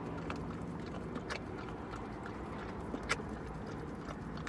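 A dog lapping and licking whipped cream from a cup, making a run of irregular wet clicks, over a steady low hum.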